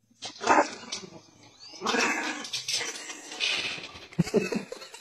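Small dog barking in a run of loud, irregular outbursts, the first about half a second in and others around two, three and a half and four seconds in.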